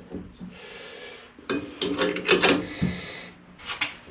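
Hand tools, a wrench and ratchet, working a stubborn nylon-insert lock nut on a 2x72 belt grinder. A faint metal-on-metal rasp is followed by a run of sharp clicks and scrapes about halfway through.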